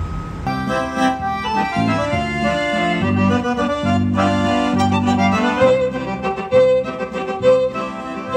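Accordion and violin duo playing a lively tune live, the accordion a Roland digital model, with a rhythmic bass-and-chord accompaniment under the melody. The music cuts in about half a second in.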